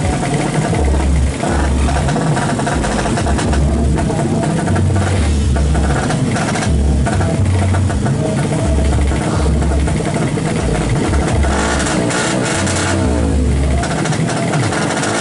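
Modified drag-race motorcycle engines running at the start line, revved up and down repeatedly with rising and falling pitch.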